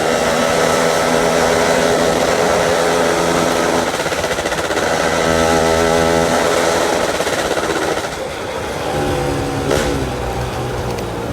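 Yamaha F1ZR two-stroke single-cylinder motorcycle engine running at steady, fairly high revs, then the revs drop back about eight seconds in and it runs on lower.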